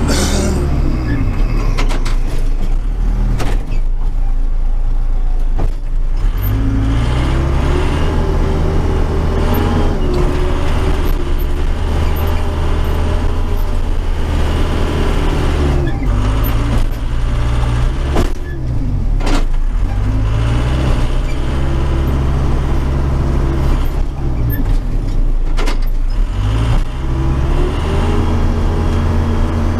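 Case 580 Super K backhoe's four-cylinder diesel engine, heard from inside the cab, running under load while the loader pushes snow. Its speed climbs and drops back about four times, with a few clunks along the way.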